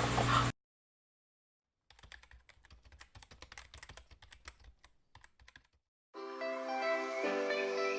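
Faint, rapid, irregular clicking for nearly four seconds, then music with sustained notes starting about six seconds in.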